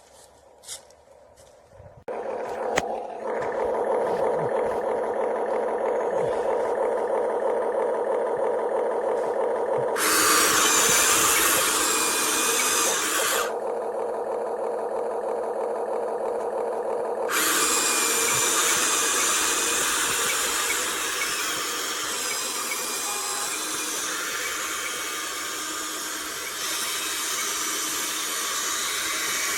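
Small electric motor and plastic gearbox of a toy RC dump truck whirring steadily, starting about two seconds in. A coarse scraping hiss joins it twice, for a few seconds and then for the last third.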